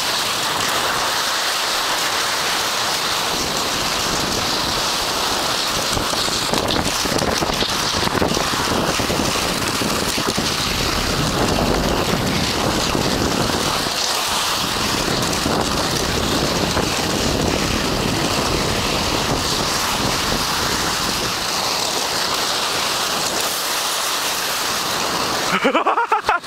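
Steady rushing hiss of cross-country skis sliding fast over spring snow, mixed with wind buffeting the microphone, while skiing downhill. A few sharp knocks break in near the end.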